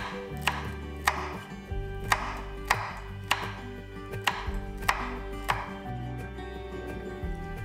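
Chef's knife slicing a hot green chili on a wooden cutting board: about ten even strokes, a little under two a second, each knocking the board, over soft background music. The strokes stop about two seconds before the end.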